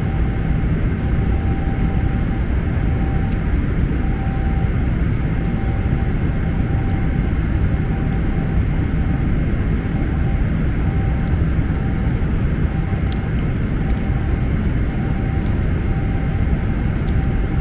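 Steady cabin drone of an airliner in flight: engine and airflow rush, strongest low down, with a faint steady tone and a few faint clicks.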